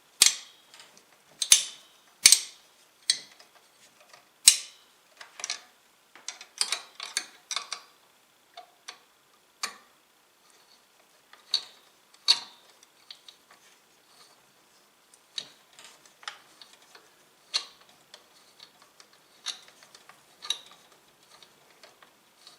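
Irregular sharp clicks and taps of a stock AMD CPU cooler and its mounting screws being handled and fitted onto an AM4 motherboard, a few louder knocks in the first seconds, then lighter, sparser clicks.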